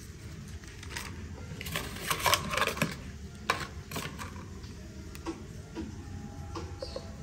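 Hands handling an unboxing's packaging and parts up close, a burst of crackly rustling and sharp clicks about two seconds in, then scattered single clicks and taps.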